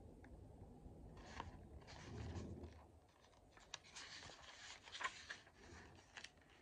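Faint rustle of a paper page being turned in a hardcover picture book, with a few small clicks and scrapes of paper and fingers as the page is handled and laid flat.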